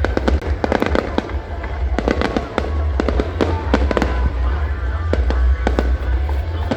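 Fireworks display: many irregular, rapid bangs and crackles of bursting shells over a continuous low rumble.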